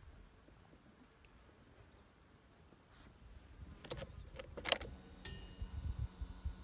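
Ignition key of a 2012 Can-Am Outlander 1000 XT ATV jingling and clicking as it is turned, a few sharp clicks about four seconds in, followed by a faint steady high whine as the quad's electrics switch on.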